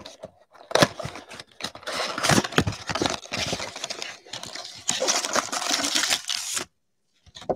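Packaging of a trading-card mega box being torn open and handled: dense crinkling and crackling with sharp clicks, which stops about a second before the end.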